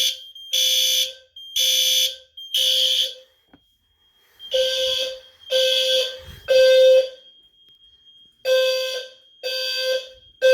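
Fire alarm horns sounding in the temporal-3 evacuation pattern, three pulses then a pause, repeated. The low, buzzy pulses come from a low-frequency (520 Hz) sounder strobe, and a steady high-pitched tone runs underneath.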